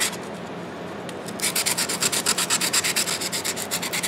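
Hand sanding with a folded piece of 100-grit sandpaper on the pitted, rusty steel of large slip-joint pliers. After a pause of about a second and a half, quick back-and-forth rubbing strokes run at about six a second.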